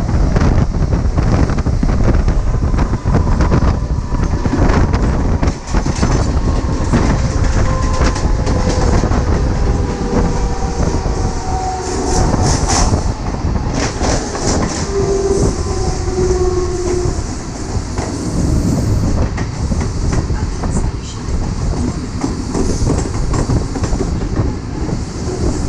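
Mumbai suburban electric local trains running side by side at speed: wheels clatter over the rail joints under steady running noise, with the electric traction motors whining at shifting pitch through the first two-thirds.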